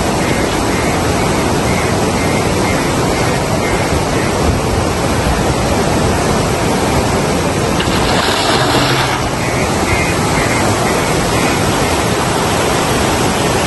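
Steady, loud rushing noise of fast-flowing floodwater, with a brief stronger hiss about two-thirds of the way through.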